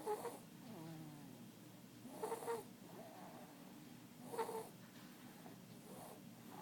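Snoring in an even rhythm, one snore about every two seconds, each carrying a short pitched note.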